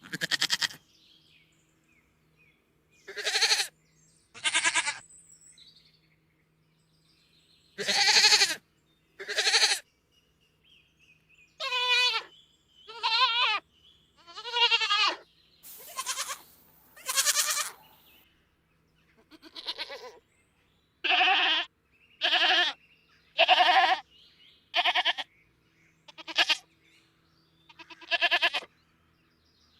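Goats bleating: a long series of separate bleats, about seventeen, each half a second to a second long, some wavering in pitch, with short pauses between them.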